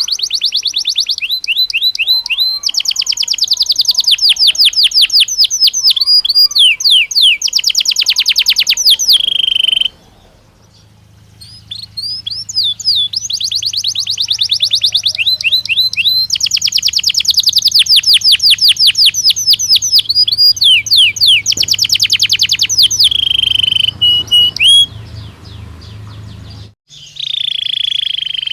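Belgian canary singing loud, fast trills and rolls of rapidly repeated notes, with a pause of about two seconds a third of the way through. A low steady hum runs under the middle of the song and cuts off suddenly near the end.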